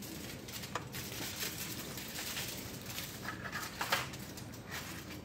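Pot of ribs bubbling at a simmer as the liquid boils down, with metal tongs clicking against the pot a few times, the loudest about four seconds in.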